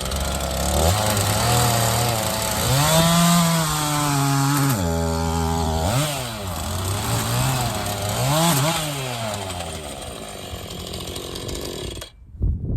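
Gas chainsaw bucking firewood logs: the engine revs up and drops in pitch several times as the chain loads and frees in the cut, then cuts off abruptly near the end.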